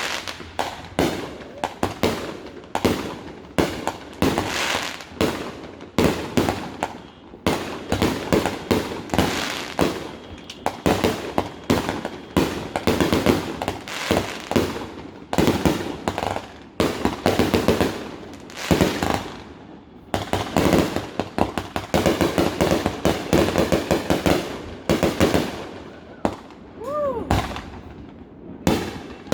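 Fireworks display in a dense barrage: shell bursts and crackling reports following one another several times a second without a break.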